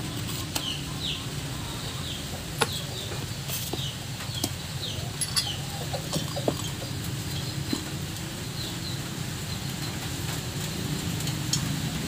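Occasional sharp metallic clicks and taps as a bare engine cylinder head and small valve parts are handled, over a steady low hum. Birds chirp over it in short, quick, falling calls.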